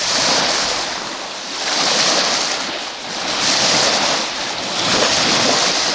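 Ocean surf washing onto the beach: a steady rush of breaking water that swells and fades every couple of seconds.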